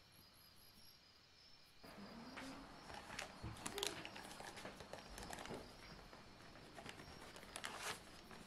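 Faint rustling and light ticks from a cardboard box of corn starch being handled and tipped to pour powder into a small glass bowl. The sounds come in scattered bursts, busiest a couple of seconds after it starts and again near the end.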